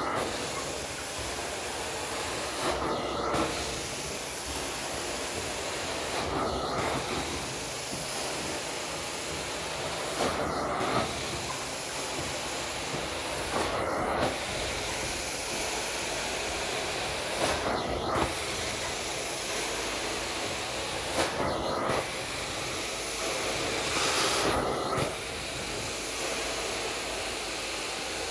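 Carpet-cleaning extraction wand hissing steadily as it sprays and sucks water back out of a synthetic rug. About every three and a half seconds the sound swells and changes with each stroke of the wand.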